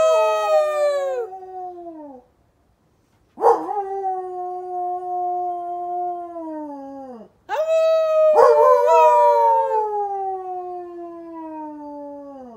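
A dog howling in long drawn-out howls: one already under way that tails off about two seconds in, then two more, each holding its pitch and sliding down at the end.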